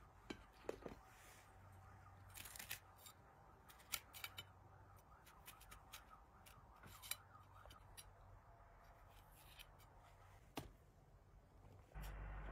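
A knife cutting through crisp green vegetable stalks held in the hand: faint, sharp, irregular snips and crunches. Near the end a steady outdoor hiss suddenly comes in.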